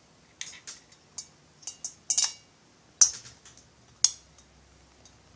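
Scattered sharp little metallic clicks and clinks, about eight of them, the loudest a little after two, three and four seconds in, from small binding-head screws being handled and set at the base of a chainsaw cylinder.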